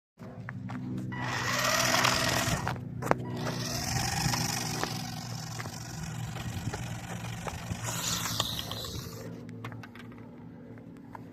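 Twin 130-size brushed electric motors of a 1:28 scale RC drag car whining up in three short bursts of about two seconds each, with a gliding tone and a high hiss, over a steady low hum. Each burst breaks off after about two seconds, the 10 A speed controller cutting power, as the owner thinks.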